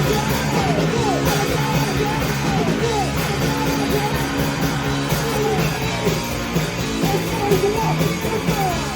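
Live rock band playing loud, dense music with yelled vocals.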